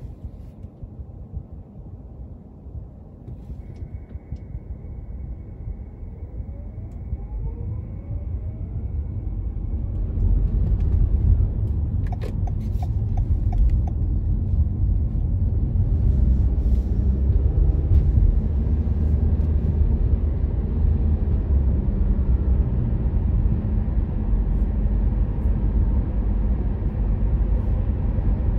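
Car driving, a low road-and-engine rumble that grows louder over the first ten seconds, then holds steady.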